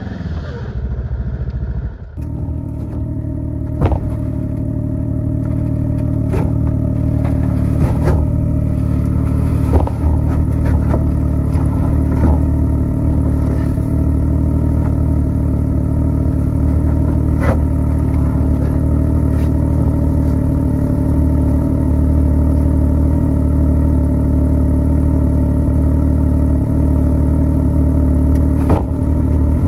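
Snowmobile engine running at a low, even speed close by, with an abrupt change in its sound about two seconds in and a few sharp knocks scattered through.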